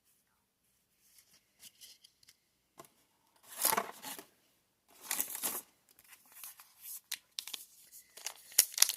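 Foil trading-card booster pack wrapper being handled, crinkled and torn, with two louder rips about three and a half and five seconds in, and lighter rustles around them.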